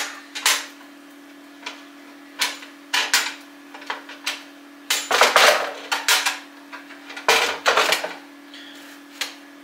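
A thin sheet-metal folding charcoal grill being unfolded and set up: a string of metal clanks and clicks, with busier runs of louder knocks in the middle and again toward the end.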